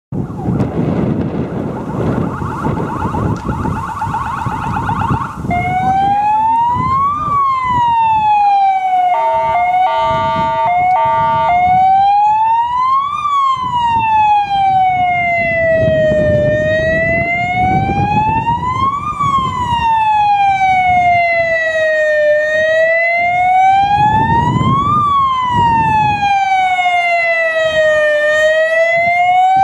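Electronic siren of an approaching Renault Master light fire-rescue vehicle. It gives a fast warble for about the first five seconds, then switches to a slow wail that rises and falls about every six seconds. About nine to eleven seconds in come two short blasts of a steady pitched tone.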